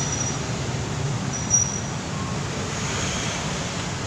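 Steady low background rumble, with a brief high ring about one and a half seconds in.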